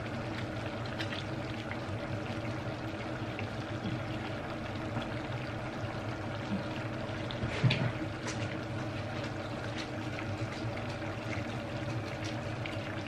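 Soft liquid sounds of coconut-milk sauce with crab and fish being stirred and spooned in a pan, over a steady low hum. A utensil knocks once a little past halfway.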